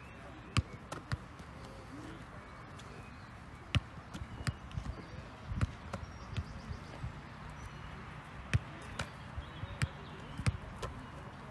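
Footballs being kicked and caught on a grass pitch: a string of short, sharp thuds at irregular intervals.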